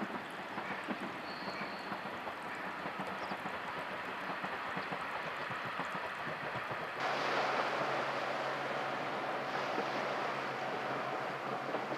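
A distant locomotive-hauled train running along the line over wind on the microphone. About seven seconds in the sound cuts to a louder steady rush of wind with a low steady hum.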